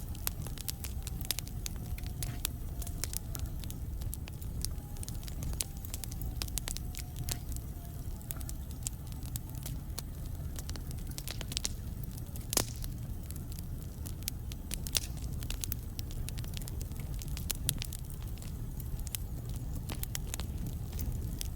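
Wood fire burning in a fireplace: logs crackling with dense small snaps over a steady low rumble, and one louder pop about halfway through. A faint whistle slowly falls in pitch over the first several seconds.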